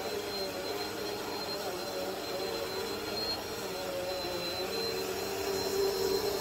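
Bagless upright vacuum cleaner running steadily with a constant high whine, pushed back and forth over a wool rug; its lower hum shifts a little with each stroke.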